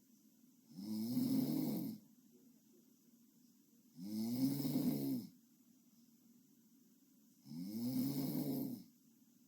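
A sleeping girl snoring: three snores about three seconds apart, each lasting a little over a second and rising slightly then falling in pitch, with quiet breathing gaps between them.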